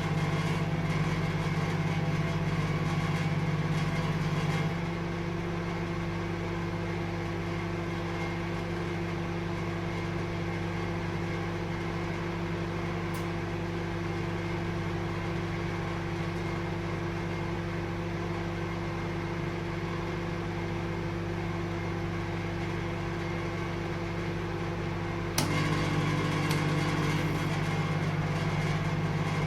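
Microwave oven running with a steady electrical hum. About five seconds in the hum drops quieter and a higher steady tone takes over; near the end a sharp click is heard and the louder hum comes back.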